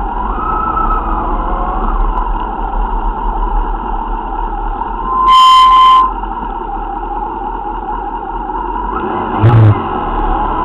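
Motorcycle engines running steadily at a slow crawl, heard close from a rider's camera. About halfway through, a horn sounds loudly for just under a second, and near the end a short, loud, low thump.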